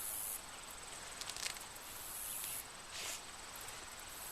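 Insects shrilling: a steady high trill under repeated very high buzzing swells, each under a second long, about every two seconds, with a few faint soft clicks.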